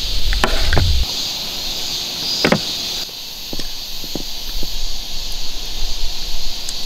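Outdoor ambience with a steady high insect-like hiss, a low rumble that stops about a second in, and several light clicks and taps as chopsticks work in a camping pan.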